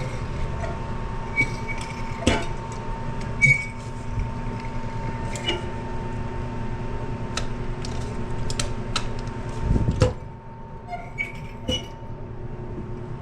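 Small metallic clicks and clinks of a flapper chain and flush lever being handled inside a porcelain toilet tank while the chain is reset a couple of links higher. A steady hum runs underneath and cuts out about ten seconds in.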